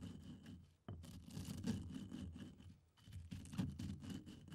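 Lumps of copal resin being crushed and ground with a pestle in a stone mortar: faint crunching and scraping strokes in three bursts, with short pauses between them.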